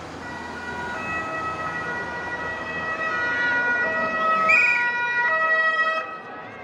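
Italian police two-tone sirens from passing Polizia vehicles, their tones stepping back and forth between two pitches and overlapping. A short high chirp about four and a half seconds in is the loudest moment.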